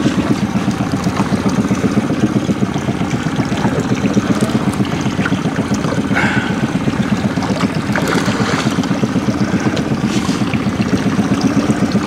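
Outboard motor running steadily at low trolling speed, a fast, even throb, with water sloshing at the stern.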